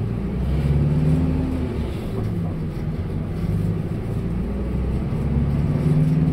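Route bus engine heard from inside the cabin while it drives off, its low note rising twice as it speeds up.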